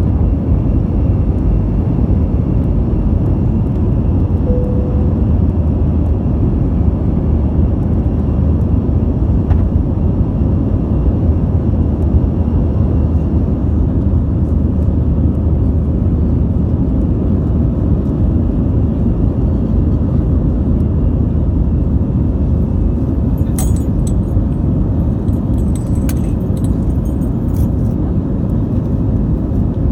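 Steady low rumble of an airplane's engines and airflow during takeoff, heard from inside the cabin. Near the end there are a few light clicks and rattles.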